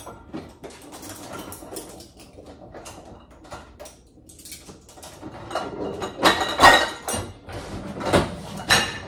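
Irregular knocks, clatter and rustling of household things being handled, loudest about six and eight to nine seconds in.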